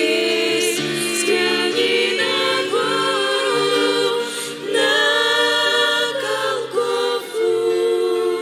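Women's choir singing a hymn in harmony, apparently without instruments, holding long drawn-out notes between the sung lines.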